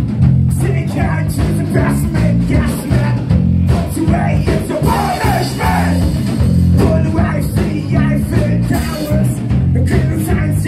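Rock song with singing over electric guitar, bass and drums, a steady beat.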